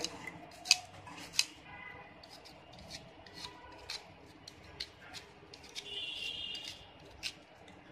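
Vegetable peeler shaving thin slices off a peeled ambarella (hog plum): a series of short scraping strokes at an uneven pace as the blade cuts through the firm fruit.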